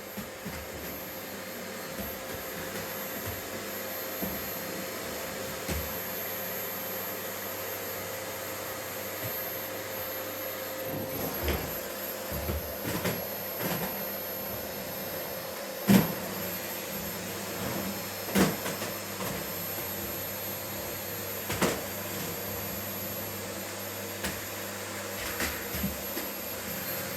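Vacuum cleaner running steadily with a constant hum. Several sharp knocks cut through it, the loudest about sixteen seconds in.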